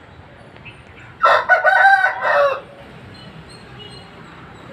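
A rooster crowing once, a single cock-a-doodle-doo of about a second and a half that starts just over a second in and falls in pitch at its end.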